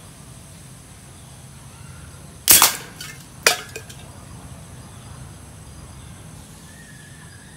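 Homemade alcohol-fuelled gun made from cans firing with a sharp bang, followed about a second later by a second, shorter crack.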